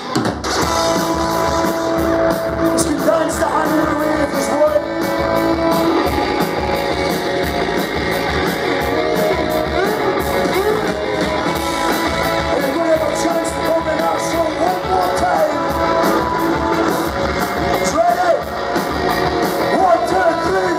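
Live rock band playing: electric guitars, drums and keyboard, with a steady drum beat under held notes.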